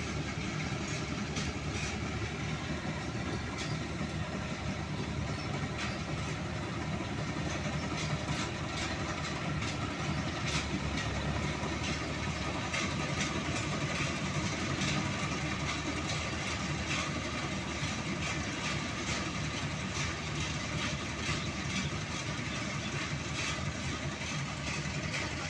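Combine harvester working through a paddy field, its engine running steadily with a continuous mechanical clatter.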